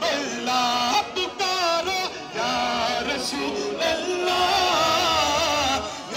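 Male voices singing a devotional chant in Urdu, a single melody with long held notes that bend up and down.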